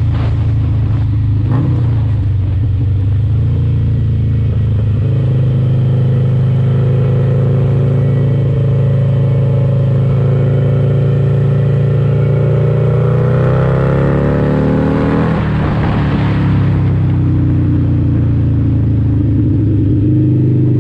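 Cruiser motorcycle engine running steadily at road speed. About twelve seconds in the revs climb for a few seconds, then drop off abruptly, and the engine settles back to a steady run.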